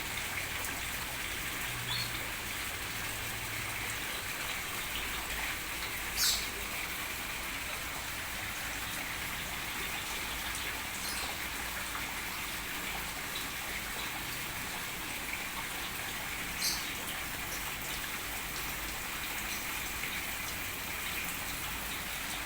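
Steady hiss of running or falling water, with two brief high-pitched sounds about six seconds in and again near seventeen seconds.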